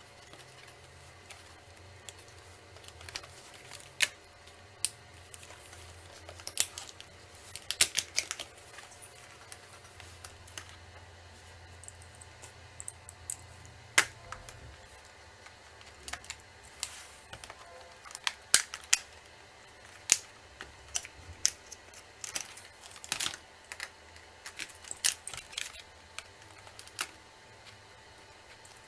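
Irregular sharp clicks and taps of an Acer Aspire V5-571 laptop's plastic case and small parts being handled while its hard drive is swapped out.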